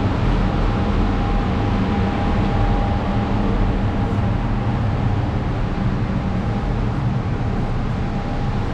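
Steady, loud machinery drone with a faint constant whine running through it, like building ventilation or plant-room equipment.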